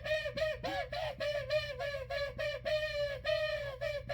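A rapid, unbroken run of high-pitched voice-like calls, several syllables a second and bending up and down in pitch, over a steady low hum.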